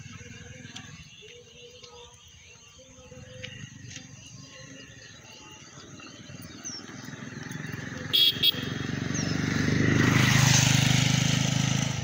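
A motor vehicle passes close by, its engine and road noise swelling up and then fading away. It gives two quick horn beeps about eight seconds in.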